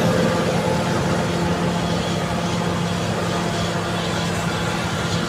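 Caterpillar D7G bulldozer's diesel engine running steadily with a low, even drone.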